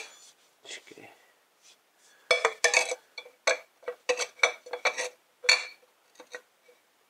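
Metal clinking and knocking as a tube is worked into a stripped pitbike exhaust silencer. There is a quick run of a dozen or so sharp, ringing clinks, then a few lighter taps near the end.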